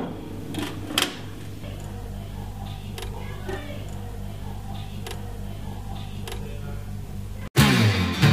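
Vinyl record player running with a steady low hum and a few scattered clicks from the stylus in the record's groove. Near the end the sound cuts out for an instant and music with strummed guitar begins abruptly.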